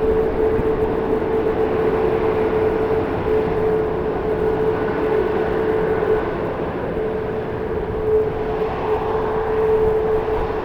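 Jet airliner engines running steadily, a continuous rushing roar with a steady whine held through it.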